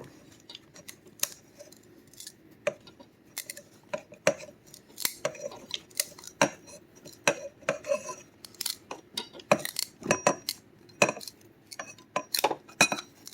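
Hand pipe cutter being worked round a plastic pipe with a metal pipe inside it, giving irregular sharp metallic clicks and clinks, some with a short high ring.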